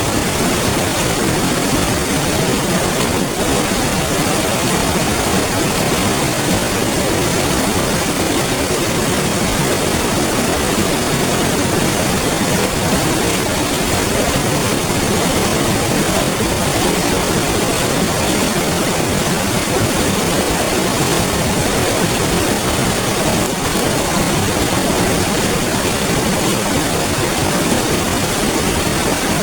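Clear river flowing, a steady, even rush of water with no breaks.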